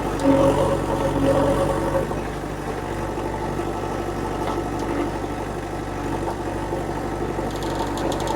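Heavy diesel engine running steadily, louder and with a higher pitched note for the first two seconds, then settling.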